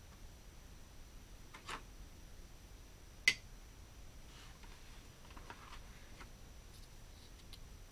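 Small plastic toy playset pieces being handled: a few light clicks and taps, with one sharper click about three seconds in, over a faint steady high whine.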